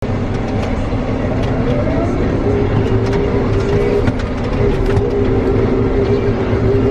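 Large farm machine's engine running with a steady low rumble and a whine that rises in pitch about two seconds in, then holds steady.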